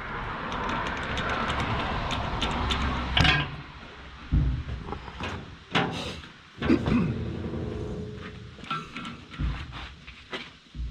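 Metal knocks, clanks and scraping of a bar and socket working on the tight knife mounting bolts of a Vermeer BC1000XL wood chipper's cutter drum, as the bolts are broken loose. A rough scraping for the first few seconds, then several sharp clanks spaced about a second apart.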